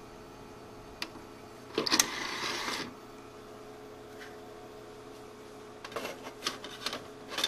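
A click, then a sharp click and a short motor whir lasting about a second as the Power Macintosh 6500's CD-ROM drive tray opens, over the steady hum of the running computer. A few light clicks and knocks near the end.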